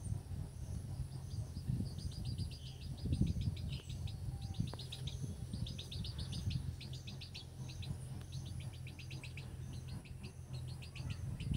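Chirping from a bird or insect heard in the background: rapid high-pitched chirps in short trilled runs, repeating from about two seconds in, over a low steady hum.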